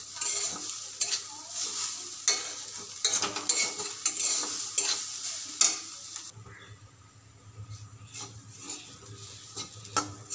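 Flat metal spatula stirring and scraping chopped banana stem around a metal kadai, with frequent clicks against the pan over the light sizzle of frying. About six seconds in it turns quieter, with a low hum underneath.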